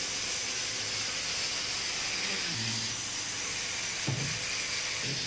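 A steady hiss of background noise, with a faint pitched sound about halfway through and a brief swell just after four seconds.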